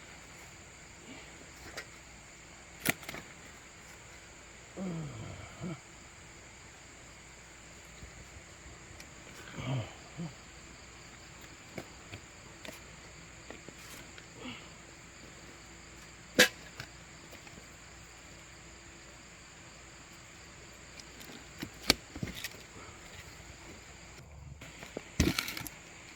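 Steady high-pitched insect buzz with scattered sharp knocks and clicks from hand-digging potatoes out of loose garden soil, the loudest about sixteen seconds in. Twice a short low sound falls in pitch.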